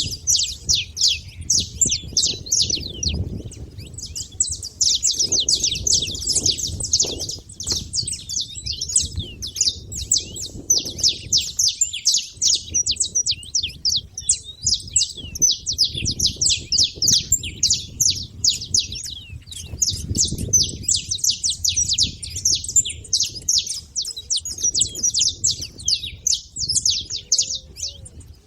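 Saffron finches chirping in rapid, dense runs of short high notes, almost without a break, with a couple of brief lulls. A faint low rumble lies underneath.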